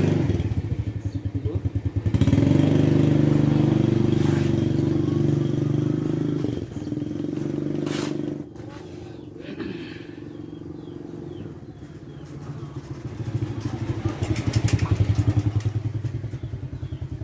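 Motorcycle engine running with an even pulsing beat. It grows loud about two seconds in, drops away after about eight seconds, and comes up again near the end.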